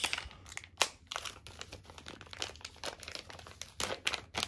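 Clear plastic bag crinkling and crackling in irregular bursts as it is handled and an aluminum motor mount is pulled out of it.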